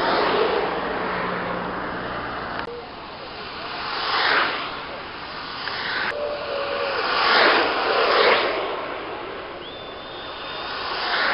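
Longboard wheels rolling on asphalt as downhill skaters speed past, several pass-bys, each swelling and fading away.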